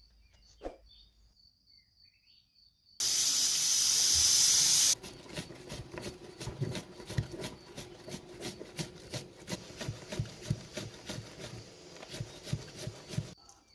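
Brinjal (eggplant) strips deep-frying in hot oil: a loud burst of sizzling for about two seconds, then steady rapid crackling and popping of the oil.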